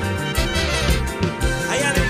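Live band playing an instrumental passage with electric guitars, trumpets and saxophones over a steady beat.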